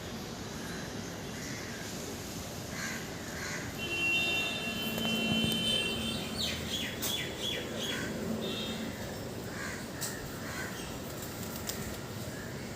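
Birds calling: a held high note, then a quick run of short falling chirps in the middle, with scattered calls and a few clicks over steady background noise.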